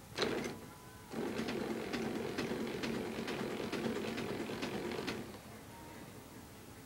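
Electric hospital bed motor running as the bed is raised or lowered: a steady hum with faint regular clicks about twice a second, lasting about four seconds after a short knock near the start.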